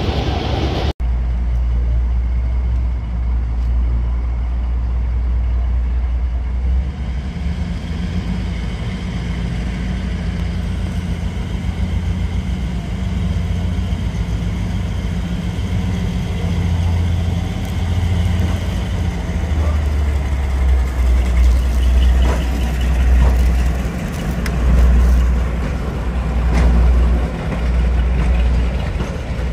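Diesel locomotive engine running with a deep, steady throb, swelling louder in uneven surges over the last third.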